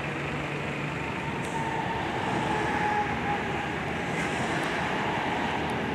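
Steady rumble of vehicle engines and road traffic, with a low idling engine hum that drops away about a second in.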